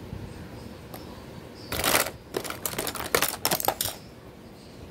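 Makeup packaging clattering and clicking as it is handled: a rustle about two seconds in, followed by several sharp clicks over the next second and a half.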